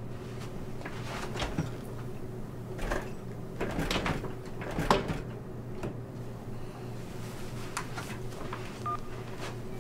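A small chest freezer's lid being tugged and rattled: a run of knocks and clunks, the loudest about five seconds in, as the jammed lid won't open. A steady low hum runs underneath.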